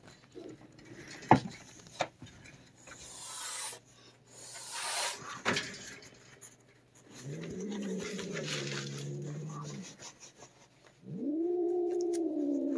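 A cat growling: one long, low growl about seven seconds in, then a second, higher-pitched growl from about eleven seconds that keeps going. This is the warning growl of a fearful, unsocialised feral cat. A few sharp knocks come earlier.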